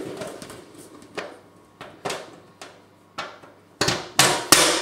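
Irregular light clicks and knocks of bolts, washers and nuts being handled and fitted through the bracket holes of a satellite dish, with three louder knocks near the end.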